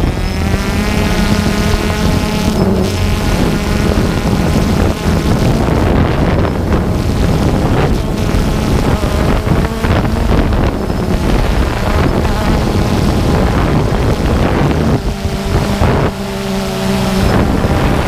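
DJI Phantom 2 quadcopter's motors and propellers buzzing in flight, heard from the GoPro it carries, with the pitch shifting as it manoeuvres. Wind rushes on the microphone throughout.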